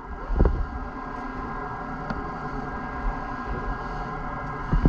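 A steady mechanical hum with a few faint steady tones in it, with a dull knock about half a second in and another near the end.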